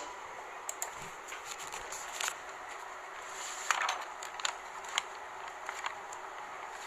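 Paper sheets rustling and crinkling as they are handled and folded, in short scattered rustles and soft clicks over a low hiss.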